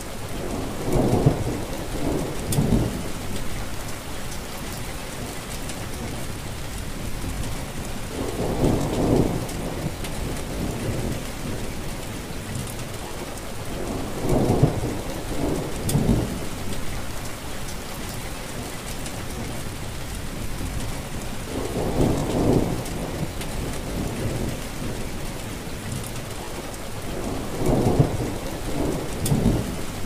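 Steady heavy rain with low rolls of thunder rumbling again and again, about every six to seven seconds.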